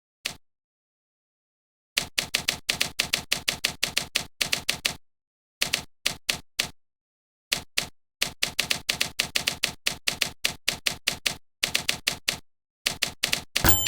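Rapid mechanical key strikes in bursts, about six or seven a second, stopping and starting several times, with a short bell-like ring at the very end.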